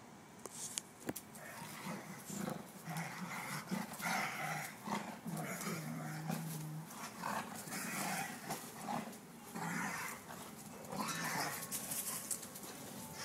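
Portuguese Water Dogs play-fighting, growling in a run of short growls about once a second, with one longer low growl in the middle: rough play, not aggression.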